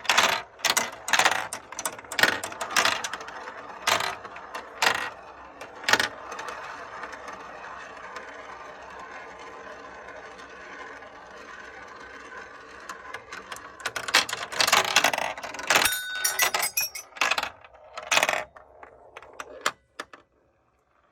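Marbles clicking and rolling along a plastic Kumikumi Slope marble run. A quick string of sharp clicks opens it, a steady rolling sound fills the middle, and more clicking and clatter follows before it stops shortly before the end.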